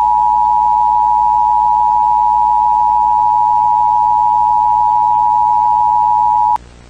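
Emergency Alert System attention signal: the loud, steady two-tone EAS alert tone held without a break, cutting off sharply shortly before the end.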